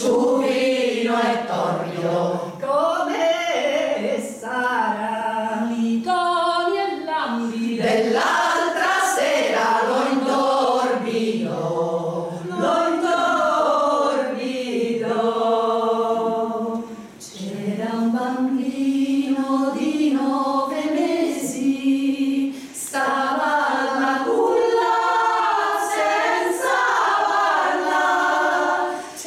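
Women's choir singing a cappella, with a short break between phrases about seventeen seconds in.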